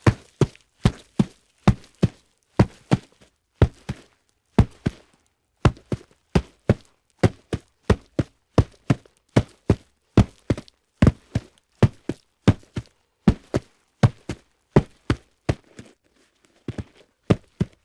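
Footsteps on a hard surface: a long, uneven run of sharp knocks, about two to three a second, often falling in pairs.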